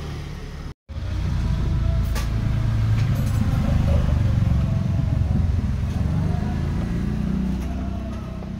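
Motorcycle engine running steadily with a low hum. The sound briefly cuts out to silence about a second in.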